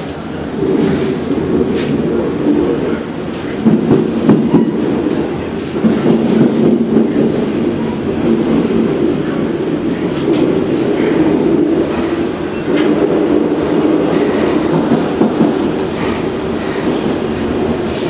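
Paris Métro train running, heard from inside the carriage: a steady low rumble with frequent clicks and clatter from the wheels on the track, louder for a few seconds about four seconds in.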